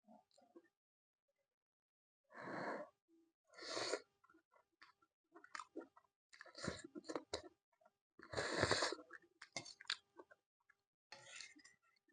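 A person eating instant noodles close to the microphone: several noisy slurps, the loudest about two-thirds of the way through, with chewing and small mouth clicks between.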